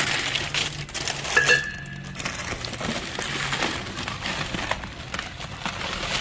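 Clinks, knocks and crinkling as a vintage gumball machine is handled and unwrapped, with a brief squeak about a second and a half in.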